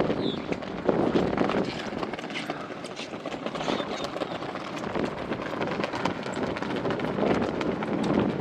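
Wind buffeting the microphone: a rushing noise that swells and eases.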